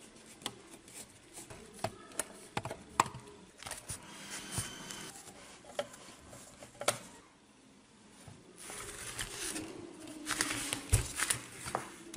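Scattered light clicks, taps and rustling of hands and a screwdriver handling an opened bench power supply's metal case and finned heatsink, with one dull thump about eleven seconds in.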